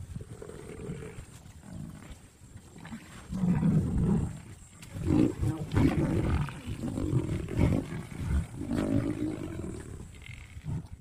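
Lion growling defensively in a series of loud, low outbursts while a herd of Cape buffalo mobs it, starting quietly and growing louder after about three seconds.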